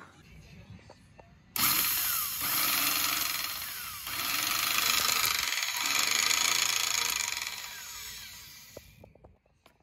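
Vintage Power-Kraft electric circular saw's motor switched on about a second and a half in and run free with no cut, easing off briefly around four seconds and coming back up, then winding down to a stop near the end. The motor runs on a newly fitted carbon brush that still sparks heavily, which the owner takes for a brush not yet bedded in.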